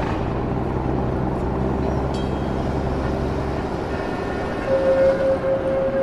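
Added street-traffic sound effect: vehicle engines running steadily. There is a short metallic clang about two seconds in, and a held tone sounds near the end.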